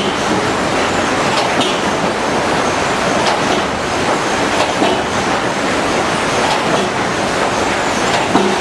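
HewSaw R200 chipper-canter sawing line running: a loud, steady mechanical din with irregular clanks and knocks.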